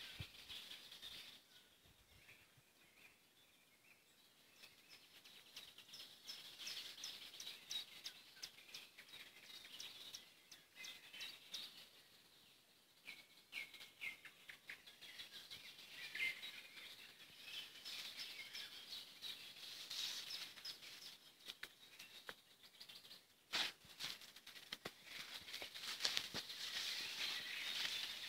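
Several songbirds singing and calling in waterside trees and reeds: overlapping high chirps and fast trills, busiest near the end. One sharp click sounds about two-thirds of the way through.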